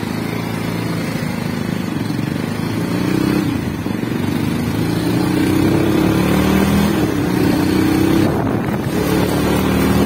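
Small motorbike engine running under throttle as the bike pulls away and picks up speed, its note climbing gradually, over steady road and wind noise.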